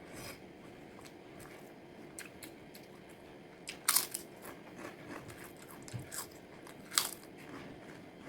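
Close-miked crunching and chewing of food, with two loud crunchy bites about four and seven seconds in and quieter mouth clicks between them.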